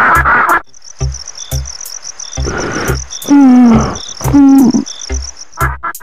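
Cartoon soundtrack. Loud music breaks off about half a second in and gives way to a steady high chirping of crickets, with a low beat still running under it. About midway come two short calls that fall in pitch, a cartoon duck's quack.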